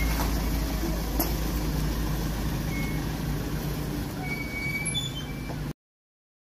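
Mitsubishi pickup truck's engine running with a steady low rumble, cutting off suddenly near the end.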